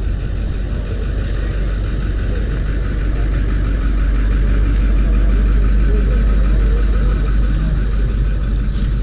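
A loud, steady low rumble that swells slightly in the middle.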